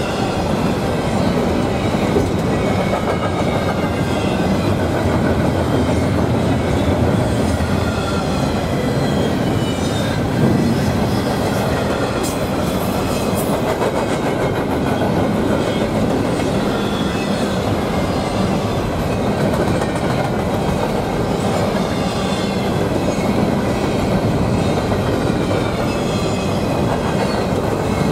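Train rolling steadily past, its railcar wheels clacking over the rail joints, with a faint high wavering wheel squeal.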